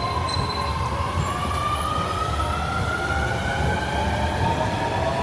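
Electric train accelerating, its motor whine rising slowly and steadily in pitch over a low rumble of the cars.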